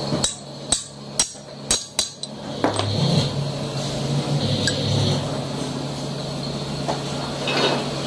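Hammer striking a steel pipe drift set over the ball bearing on a motorcycle crankshaft to drive it on: five sharp metallic blows in about two seconds, then one lighter knock. A steady low hum runs underneath.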